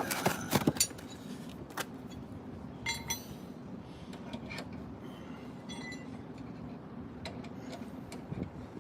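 Metal tools being handled: a few sharp knocks in the first second, then two short ringing clinks, about three and six seconds in, over a steady low hum.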